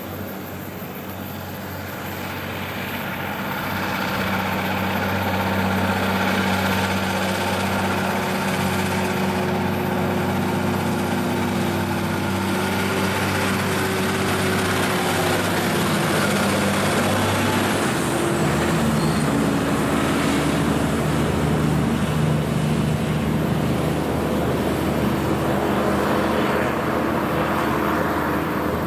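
Heavy diesel log truck running under load on a hill climb. It grows louder as it approaches, and its engine note drops in pitch about two-thirds of the way through as it goes by, then it pulls away.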